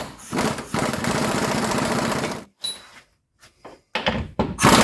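Impact wrench hammering in two bursts of a second or two each, running a bolt down on a long extension until it is just snug.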